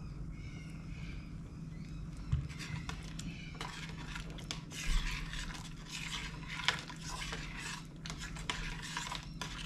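A spoon scraping and stirring in a pot of soup as a dollop of cream is worked in, in irregular strokes with a few sharp clicks of metal on the pot, getting busier a few seconds in. A low steady hum runs underneath.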